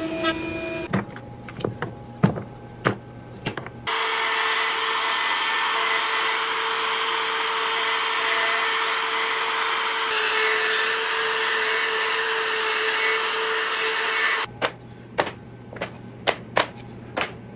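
Handheld Craftsman router motor running at a steady high speed with a constant whine, coming in suddenly about four seconds in and cutting off near the end. Scattered light clicks and taps come before and after it.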